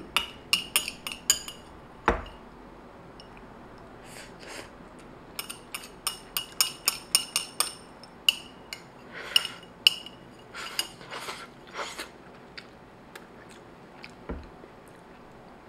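Metal chopsticks clinking and scraping against a ceramic bowl in quick runs of light ticks while noodles are shoveled from it, with one dull knock about two seconds in.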